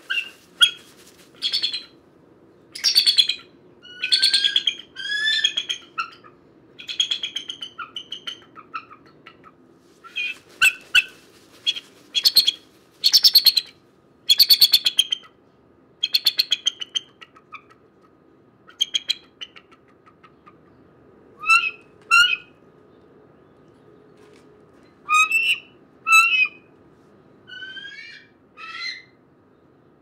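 Bald eagles calling: repeated high-pitched, gull-like whistled calls and short chirps, some broken into a rapid chatter. The calls come thick and fast at first and grow sparser after about eighteen seconds.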